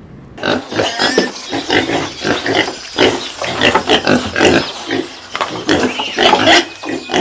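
Animals making many short, rough calls in quick succession, several a second and overlapping.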